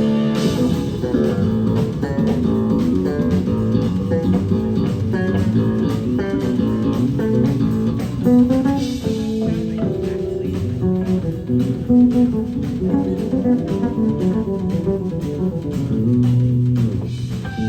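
Live instrumental rock-fusion played by an electric guitar, bass guitar and drum kit trio, with busy guitar lines over bass and a steady beat of drum hits.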